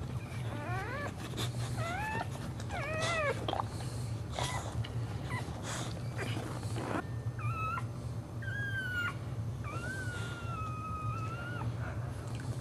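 Boxer dog in labour whining: a run of short rising-and-falling whines, then a few longer drawn-out whines, the longest lasting about two seconds, as a puppy is being delivered. A steady low hum runs underneath.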